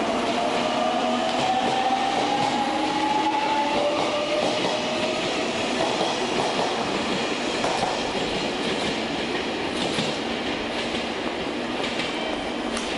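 A JR Kyushu 813 series electric train pulls out of the platform. Its motors whine, rising slowly in pitch over the first few seconds as it accelerates, over the rumble and clatter of its wheels, which fade gradually as it draws away.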